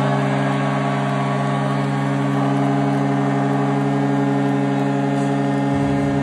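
Arena goal horn sounding one long, steady blast for a home goal, over a cheering crowd.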